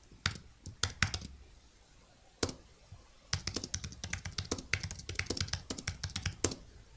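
Typing on a computer keyboard: a few scattered keystrokes, a pause of about a second and a half, then a steady run of fast keystrokes from about three seconds in.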